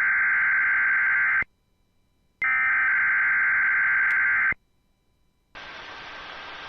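NOAA Weather Radio Required Weekly Test: two loud bursts of digital SAME header data tones, each about two seconds long and about a second apart. From about five and a half seconds in, steady radio static hiss takes over.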